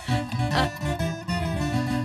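Background music: a quick run of short low notes.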